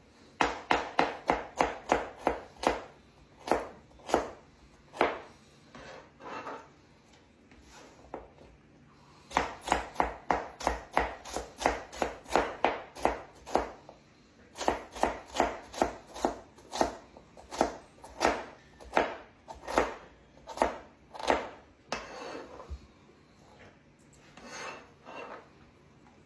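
Kitchen knife chopping vegetables on a cutting board: runs of quick, even chops at about three to four a second, broken by short pauses, softer near the end.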